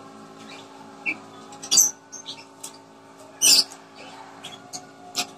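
A person eating pieces of fresh fruit: short, crisp mouth sounds of biting and chewing, with the loudest smacks about two seconds in and again halfway through. A faint steady hum runs underneath.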